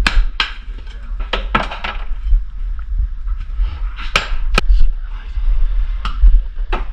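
Hand tools working in a trench: an irregular run of about nine sharp scrapes and knocks, several close together in the first two seconds, over a steady low rumble.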